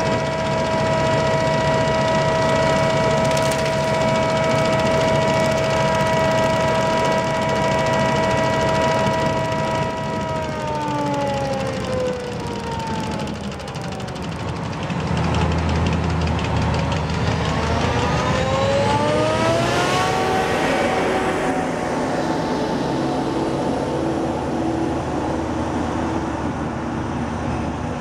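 Claas Jaguar 960 forage harvester running loud, with a high steady whine from its drive. About ten seconds in the whine winds down in pitch, and a few seconds later the machine revs back up with a deeper rumble, the whine rising in pitch, then runs steady.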